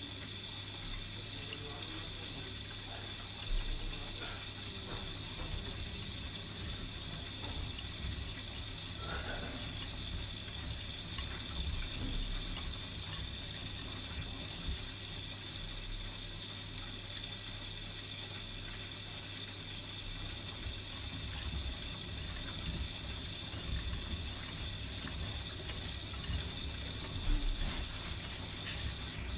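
Miele Supertronic front-loading washing machine mid-wash: the drum turning and wet laundry sloshing and splashing in the water, with a steady low hum and an occasional soft thump.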